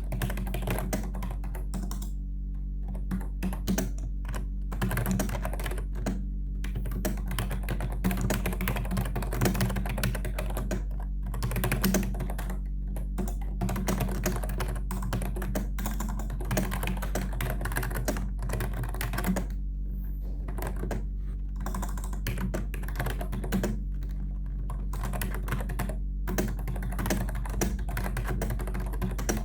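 Continuous typing on a Logitech K120 membrane keyboard: quick runs of key presses broken by short pauses of a second or so, over a steady low hum.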